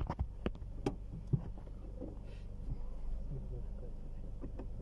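Low steady rumble inside a car cabin, with a quick run of sharp clicks and knocks in the first second and a half.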